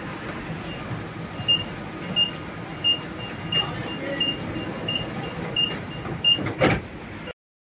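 Door-closing warning beeps of a DB class 442 Bombardier Talent 2 S-Bahn train: about eight short high beeps, one every 0.7 s or so, while the doors slide shut, over the train's steady hum. A single thud comes near the end.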